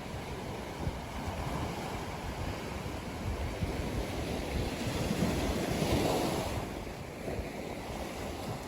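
Ocean surf breaking on a sandy beach: the wash of a wave builds to a peak about six seconds in and then recedes. Wind rumbles on the microphone underneath.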